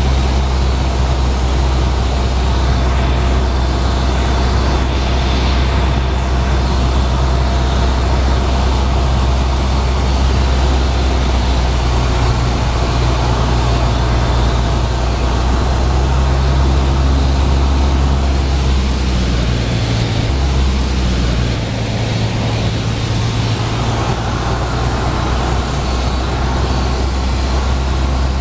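Cabin noise inside a single-engine Cessna on final approach to land: the piston engine and propeller drone steadily under a rush of air. About twenty seconds in, the low drone changes and drops back for a moment.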